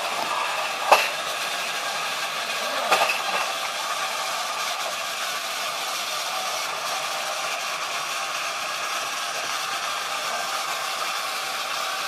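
Small toy motors whirring steadily, with a sharp click about a second in and a brief plastic clatter about three seconds in as a toy RC car crashes into a battery toy train on plastic track.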